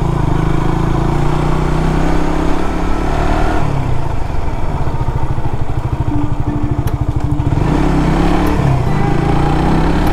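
Motorcycle engine running steadily while being ridden along the road, with a dip in the engine note about halfway through before it picks up again.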